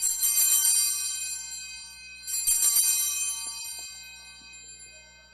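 Altar bells rung twice, at the start and again about two seconds in, each ring a bright high jangle that slowly fades; rung at the elevation of the chalice after the consecration.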